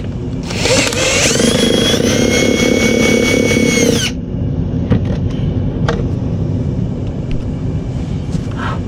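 Cordless drill/driver spinning up and running with a steady whine for about three seconds as it backs out a screw on the battery box, then stopping abruptly. A couple of light clicks follow.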